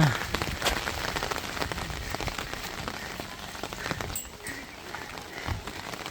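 Heavy rain falling, with many individual drops striking close by as a dense run of sharp ticks.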